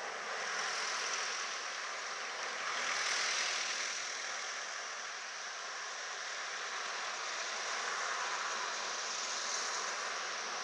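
Steady outdoor rushing noise with no distinct events, swelling about a second in, more strongly around three seconds in, and again near the end.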